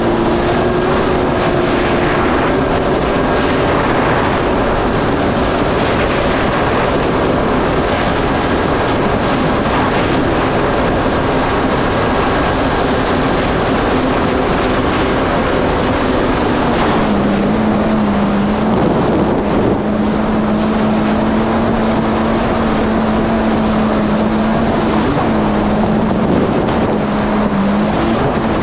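Yamaha GP1800R SVHO jet ski's supercharged four-stroke engine running steadily at cruising speed under the rush of wind and water, its note dipping briefly about two-thirds of the way through and again near the end as the throttle eases.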